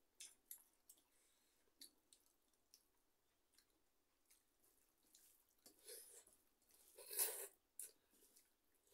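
Two people eating rice and dal with their hands from steel plates: soft, scattered clicks and squishes of fingers working the food and of chewing, with a louder, longer squish about seven seconds in.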